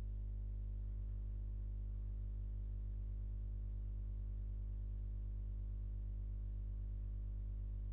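Steady low electrical hum with evenly spaced overtones, unchanging throughout.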